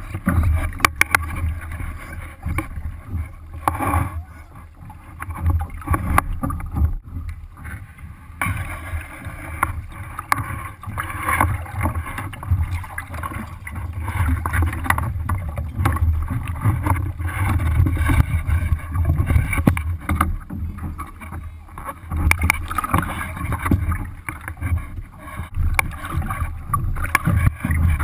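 Water lapping and splashing against the hull of a small Sunfish sailboat under way, with a low rumble of wind buffeting the deck-mounted camera's microphone. The level rises and falls unevenly.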